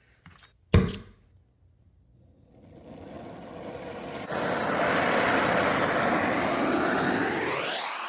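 Brazing torch: a sharp click a little under a second in, then a gas hiss building from about three seconds in that turns into a loud, steady flame rush around four seconds, with a rising sweep in pitch near the end.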